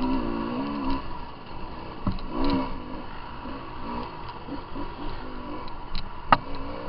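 Off-road dirt bike engine, its pitch rising and falling with quick throttle blips as it picks through tight woods. Sharp knocks sound about two seconds in and again near the end.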